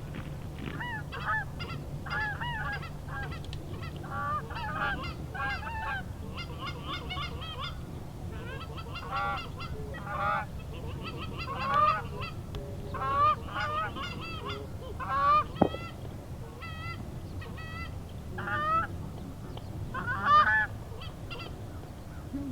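A flock of geese honking as it comes in, many short honks overlapping and rising and falling in clusters. Beneath them is a low steady rumble, and there is one sharp click about two-thirds of the way through.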